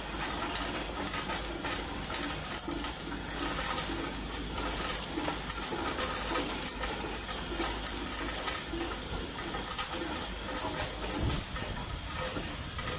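Tube ice machine discharging: pieces of tube ice clattering down a stainless-steel chute into a plastic basin, over the steady low hum of the running machine.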